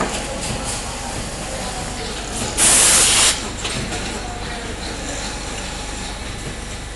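Automatic winding machine running steadily, with light clicks, and one loud hiss lasting under a second about two and a half seconds in.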